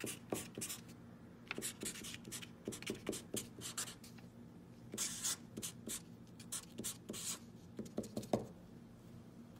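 Felt-tip permanent marker writing on card: short scratchy strokes in bursts, with pauses between letters and a few quick dabs about eight seconds in.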